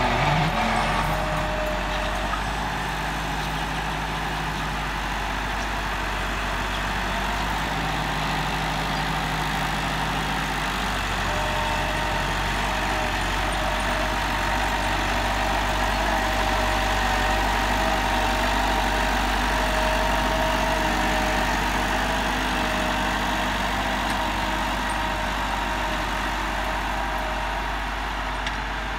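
Massey Ferguson 385 tractor's four-cylinder diesel engine running steadily under load, pulling an 11-tine cultivator through the soil.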